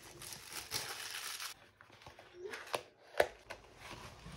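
Packaging rustling and crinkling as a cardboard jigsaw puzzle box is unwrapped and opened by hand, with a sharp tap about three seconds in.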